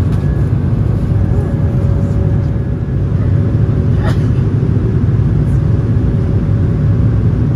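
Steady low rumble of airflow and engines inside the cabin of an Airbus A220-300 airliner, with its Pratt & Whitney PW1500G geared turbofans, during the descent to land. A faint steady whine sits over it, and there is a single click about four seconds in.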